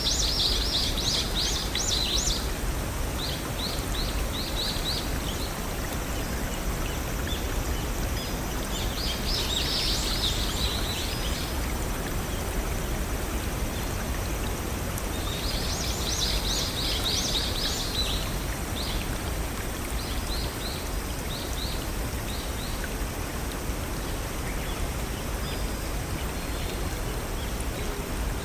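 Steady rushing of a small stream or waterfall, with a songbird singing phrases of quick, high chirping notes several times over it: near the start, about ten seconds in and again about sixteen seconds in, then scattered single notes.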